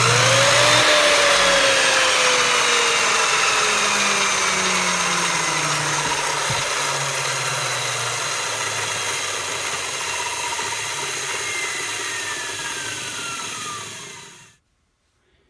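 King Canada 10-inch sliding compound miter saw's motor and blade: switched on, the whine climbs within the first second, then falls slowly in pitch and loudness for over ten seconds as the blade coasts down. The saw has no electric brake, so the blade winds down on its own. The sound cuts off suddenly near the end.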